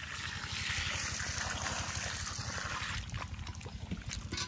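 Water poured out of a bucket over fish in a woven basket, splashing and running onto the ground for about three seconds, followed by a few sharp clicks and taps. A low rhythmic throb runs underneath.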